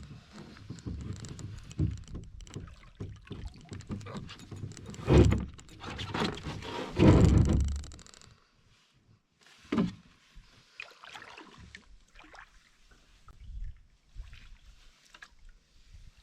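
Canoe out on the water: irregular splashing and knocking from paddling, loudest about five and seven seconds in, with a sharp knock near ten seconds, then quieter.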